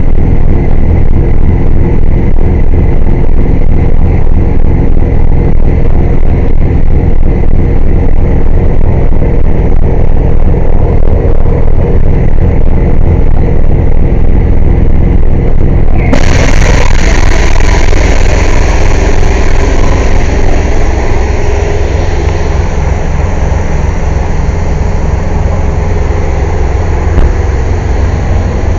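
Air compressor running with a loud, steady, pulsing low drone. About sixteen seconds in, a loud hiss of escaping air starts suddenly and keeps going over the drone.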